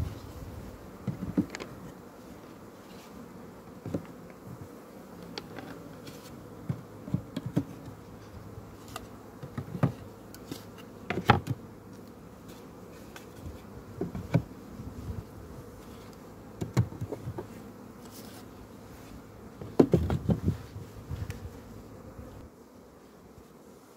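Honeybees buzzing steadily around an open wooden hive while its frames are lifted out, with repeated knocks and clunks of wood on wood. The loudest knocks come near the middle and about four seconds before the end.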